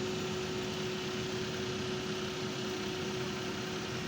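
Road-paving machinery, such as an asphalt paver and roller, running steadily, with a constant engine noise and a steady hum.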